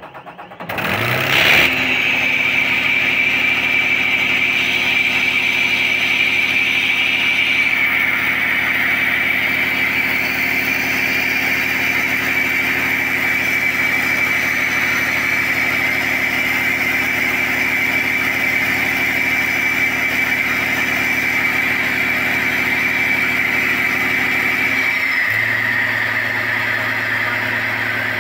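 Isuzu 6WG1 inline-six turbo diesel engine starting up on a test stand about a second in, then running steadily with a high whine over it. About 25 s in, its note drops lower.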